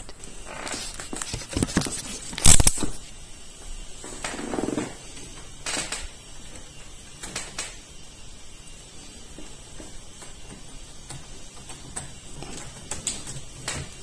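Scattered clicks, knocks and rustles of hands handling a laptop and plugging in a VGA cable, the loudest a sharp knock about two and a half seconds in.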